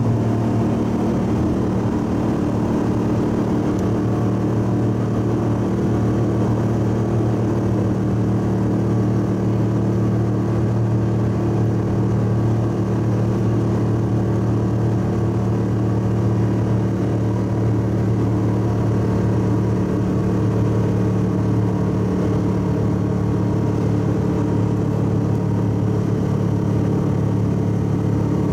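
Subaru EA81 flat-four with twin carburettors running at a steady pitch under load as the car climbs a long hill at highway speed, heard from inside the cabin.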